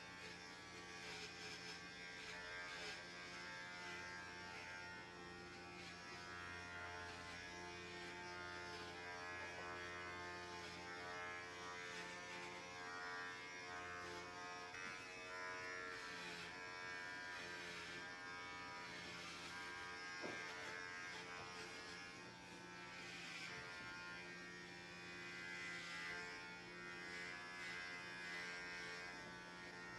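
Electric hair clippers running with a steady buzz as they cut a man's short hair.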